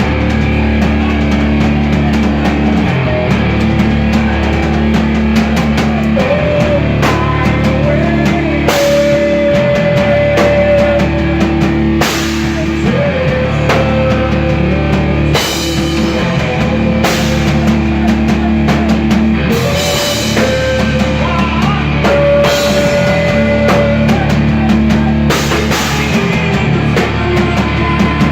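Live rock band playing: guitar and bass over a drum kit, with cymbal crashes every few seconds and a lead melody of long held notes that bend in pitch.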